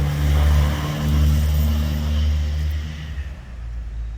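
Motor vehicle engine running with a low, steady hum, fading away near the end as it passes.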